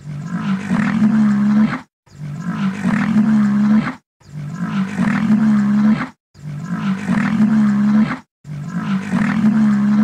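Deep rhinoceros bellow, about two seconds long, sounded five times in a row with short gaps. Each call has the same shape, like one recording looped.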